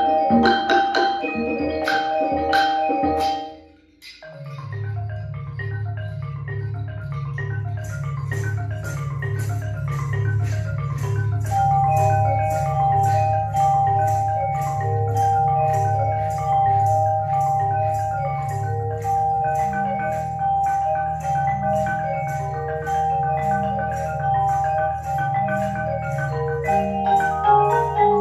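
Percussion ensemble of marimbas and other mallet keyboards playing: loud struck chords for the first few seconds, a short pause about four seconds in, then a low repeating marimba pattern, joined by fast higher mallet notes and a long held high note.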